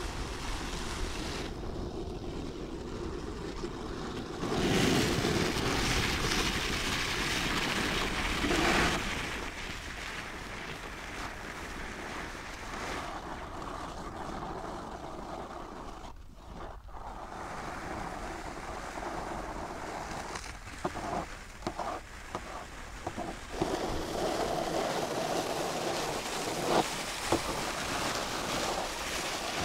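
Snow shovels scraping and pushing snow across lake ice in long noisy swells, with wind on the microphone. There are several short knocks in the second half.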